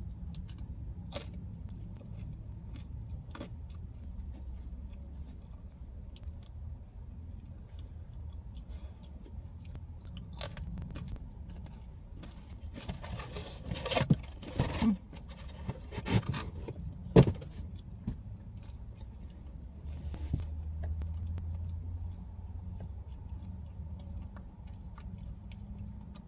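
A person chewing and biting into pizza crust, with a cluster of sharp crunches and clicks about halfway through, over a steady low hum.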